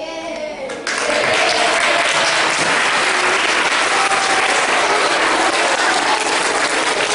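Hall full of children applauding, breaking out suddenly about a second in and going on steadily, with a few voices mixed in.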